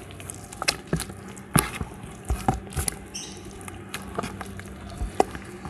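Dough being kneaded by hand: irregular sticky squelches and slaps, a few sharper than the rest.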